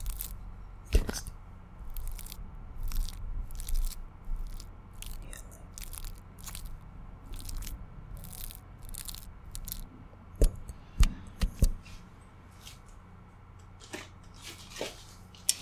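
Irregular crisp clicks and crackles close to the microphone, about one or two a second, with a cluster of louder taps about ten to eleven and a half seconds in. A steady low electrical hum runs underneath.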